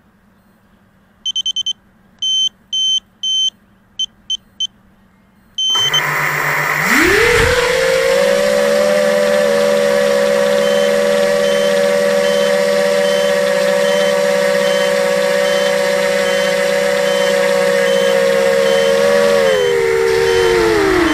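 A run of short high electronic beeps from the quadcopter, then the ZMR250's four Multistar 2205 brushless motors spin up about six seconds in with a rising whine. They hold a steady high whine in flight, dipping in pitch near the end. A faint beep repeats about twice a second under the motors: the low-battery warning.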